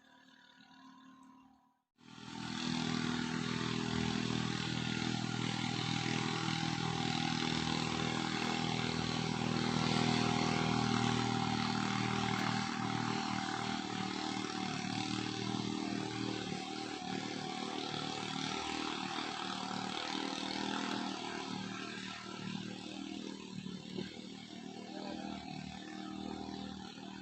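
A small boat's motor running steadily at an even pitch, cutting in abruptly about two seconds in.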